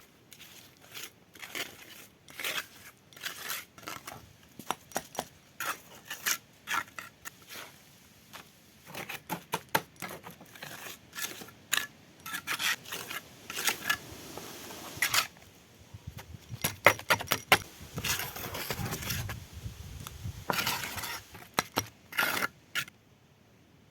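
Irregular clicks, knocks and scrapes of hand work with small hard objects.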